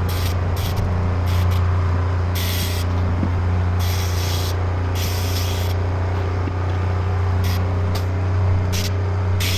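Compressed air hissing in short, irregular spurts over a steady low hum.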